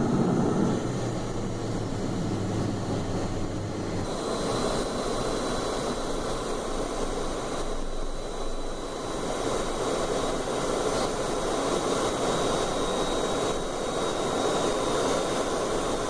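Cessna Citation V business jet's Pratt & Whitney JT15D turbofans running: a steady rushing noise with a thin high whine that comes in about four seconds in, while a low hum drops away at the same moment.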